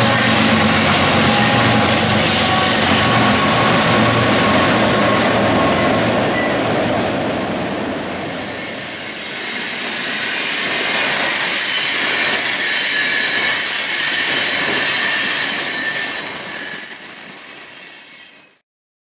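CSX diesel freight locomotives running past with a steady engine drone. From about halfway in, a string of tank cars rolls by on a curve with high, steady wheel squeal, and the sound fades out near the end.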